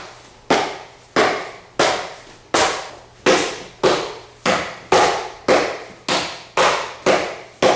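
Downward back-knuckle strikes on a cardboard striking target, landing with each step of the footwork: a steady run of sharp slaps about every 0.6 seconds, each followed by a short echoing decay.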